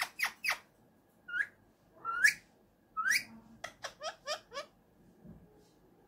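Indian ringneck parrot giving sharp, high calls: a quick run of short calls, then three longer calls about a second apart, then a fast string of five or six short falling calls that stops about three quarters of the way through.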